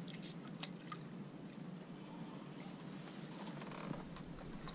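Faint background hiss with a few small, scattered clicks and ticks.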